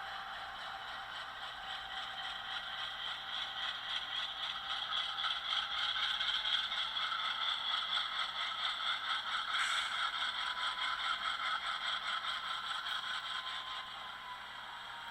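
HO-scale Atlas Dash 8-40CW model locomotive running on the track: its LokSound decoder's diesel engine sound plays through a small onboard speaker, mixed with wheel-on-rail clatter. It grows louder toward the middle and fades near the end, as if passing close by.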